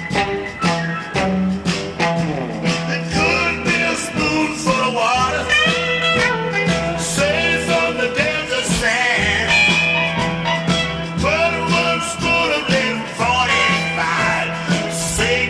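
Rock-style background music with a steady beat, guitar and a singing voice.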